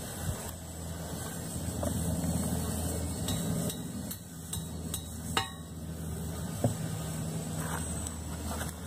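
Mallet tapping a sailboat propeller onto its shaft: several sharp knocks starting about three seconds in, one of them ringing briefly, over a steady low engine hum.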